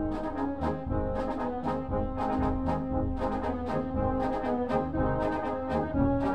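Background music led by brass, with a steady percussion beat.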